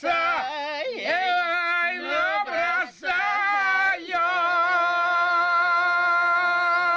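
A man and a woman singing an old Don Cossack folk song together, unaccompanied: ornamented, wavering phrases, then from about four seconds in a long held note, the song's final one.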